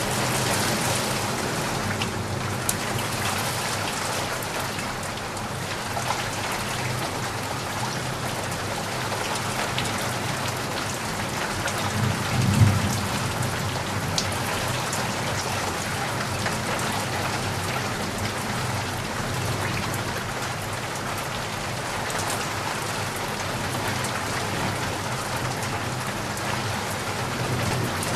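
Heavy rain falling steadily, with a brief low rumble about halfway through.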